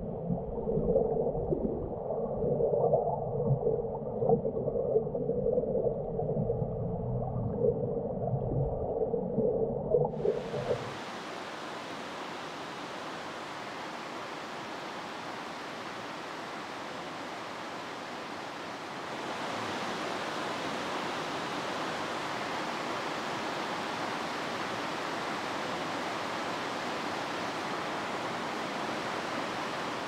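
Muffled, churning water for about the first ten seconds, with nothing high in it, then an abrupt change to the steady rush of a mountain stream's flowing water, which grows a little louder about nineteen seconds in.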